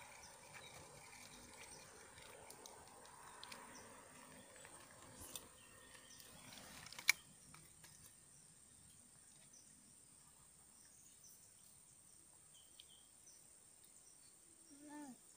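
Faint rural ambience with a steady high insect trill, like crickets, throughout. A single sharp click about seven seconds in is the loudest sound, and a brief low falling sound comes near the end.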